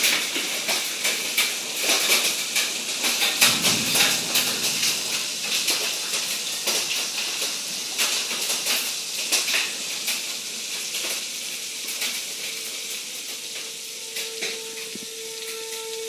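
Hail and heavy rain beating on a window and the ground outside: a dense hiss full of irregular ticks and clicks. A brief low rumble comes about three and a half seconds in, and a faint steady tone comes in near the end.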